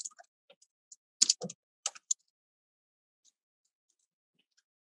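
Typing on a computer keyboard: a short, uneven run of key clicks over about two seconds, then it stops.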